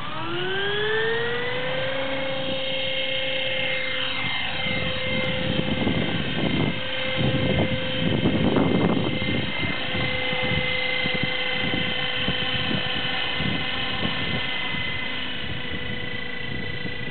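Electric RC helicopter (Kyosho Schweizer 300C) whining as its motor and rotor spool up, the pitch rising over the first two seconds, then holding a steady high whine as it lifts off and flies. Gusty rushing noise comes and goes through the middle.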